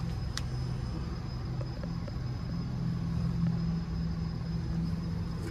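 Diesel engine of a 1999 International 4700 truck idling steadily, a low even hum.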